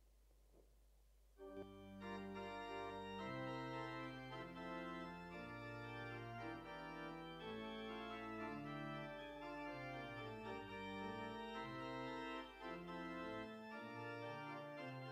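Church organ starting to play about a second and a half in, holding full sustained chords that change every second or so: the closing organ voluntary after the service's final words.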